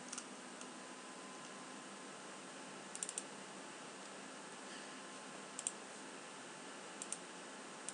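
Faint, sparse clicks from working a computer, in small clusters of two or three, over a steady low hiss.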